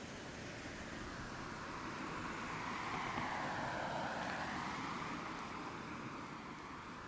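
A car passing by: its tyre and road noise swells to a peak about halfway through, then fades away.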